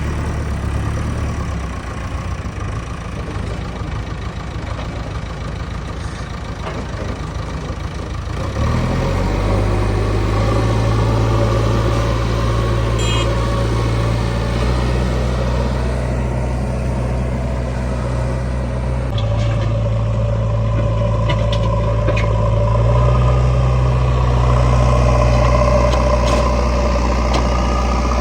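JCB 3DX backhoe loader's diesel engine running while working, stepping up to a louder, higher-pitched running about eight seconds in and holding there.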